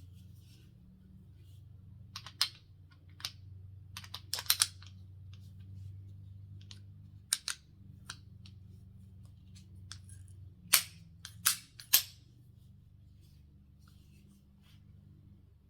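Scattered sharp clicks and knocks, some single and some in quick pairs, over a low steady hum. Three louder clicks come close together about three-quarters of the way through.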